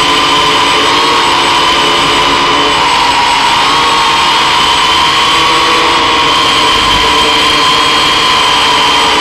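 Octocopter's electric motors and propellers whining steadily in flight, several held tones wavering slightly in pitch.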